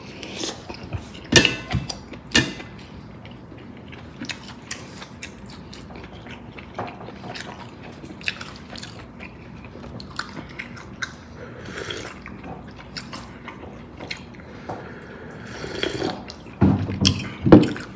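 Close-miked eating of bulalo, a beef shank and marrow soup: chewing and wet sips of broth, with scattered sharp clicks. The loudest come about a second and a half and two and a half seconds in, and a denser run of eating sounds comes near the end.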